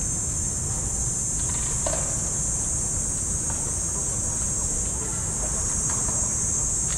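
Insects droning in a steady high-pitched chorus over a low, steady rumble, with a few faint taps.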